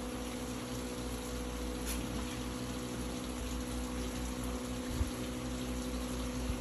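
A steady motor hum with an even hiss, and one short thump about five seconds in.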